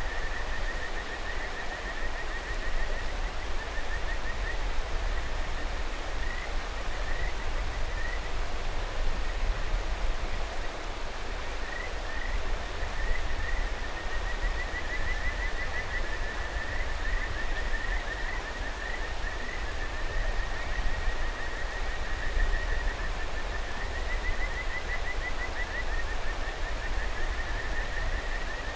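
Kajika frogs (Buergeria buergeri) calling: runs of short, rising whistled notes repeated over and over, some runs longer and louder than others, over the steady rush of a mountain river.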